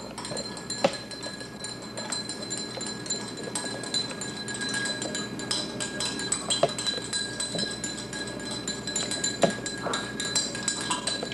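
A spoon stirring water in a drinking glass, clinking against the glass over and over, with a few sharper knocks and a faint steady ring from the glass.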